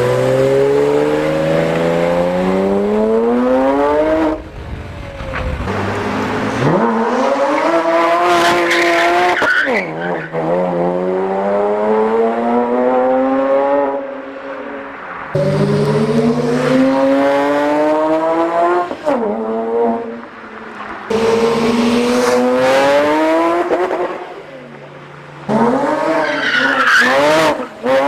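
Porsche 987 Cayman S flat-six running through Soul Performance headers and cat-back exhaust under hard acceleration. The pitch climbs steeply, drops at each upshift and climbs again, several times over. Near the end come a few quick revs up and down.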